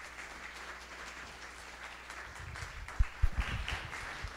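Audience applauding, many hands clapping steadily, with a few low thumps about three seconds in.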